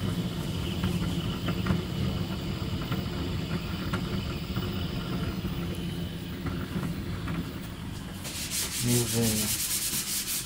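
Deltamaker delta 3D printer running a print: its stepper motors buzz and whir in shifting pitch as the print head moves, with small clicks. Near the end a fast, rhythmic hiss joins in.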